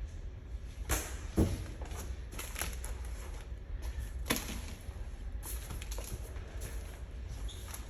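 Scattered knocks and clatter of gear being handled and set down, the loudest thump about a second and a half in and another about four seconds in, over a low steady hum.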